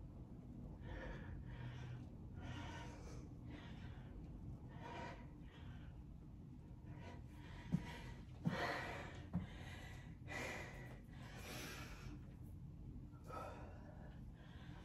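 A woman breathing hard during incline push-ups, with a heavy breath about every second or so. A few thumps come about eight seconds in as she steps her feet in and stands up from the bench.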